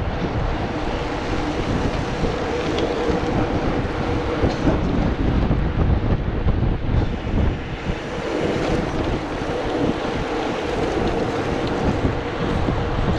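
Wind buffeting the microphone of a handlebar-mounted camera on a mountain bike riding on asphalt, over a steady road and tyre rumble. A faint steady hum fades out around the middle and returns later on.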